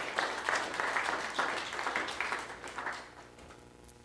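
Audience applauding with many hands, dying away about three seconds in.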